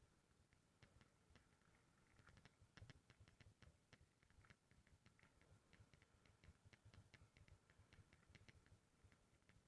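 Near silence with faint, irregular clicking and ticking.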